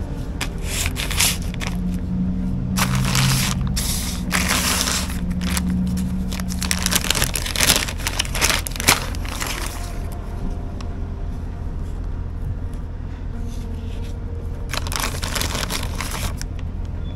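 Plastic zip-top bag crinkling and rustling as it is handled, in bursts through the first ten seconds and again near the end, over a steady low rumble.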